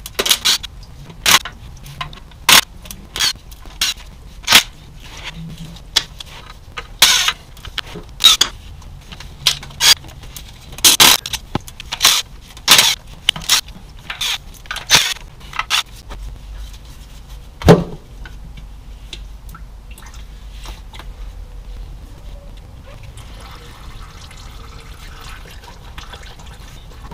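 Cordless ratchet spinning the perimeter bolts out of an automatic transmission's oil pan in many short irregular bursts, with one loud metallic clank about two-thirds of the way in. A faint steady hiss near the end.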